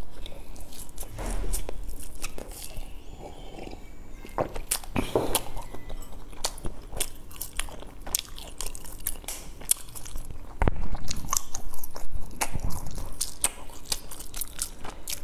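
Close-miked chewing of crunchy food: many crisp crunches and mouth clicks, louder about a second in, around five seconds in, and again from about eleven seconds in.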